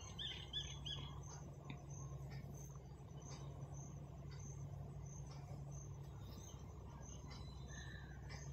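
Quiet room tone with a steady low hum and faint high-pitched chirping, with a few short, clearer chirps in the first second.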